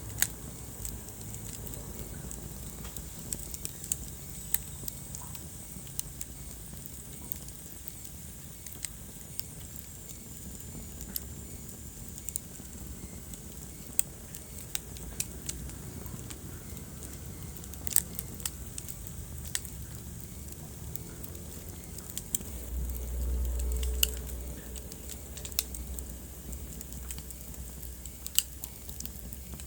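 Wood fire burning in a fireplace: irregular sharp crackles and pops over a low, steady rumble of flame. The rumble swells for a couple of seconds a little over twenty seconds in.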